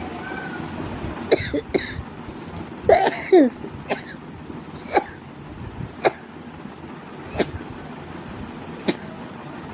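A woman sneezing and coughing in a string of about eight short, sudden bursts, the loudest and most voiced about three seconds in. The fit is brought on by tickling the inside of her nose with a pin.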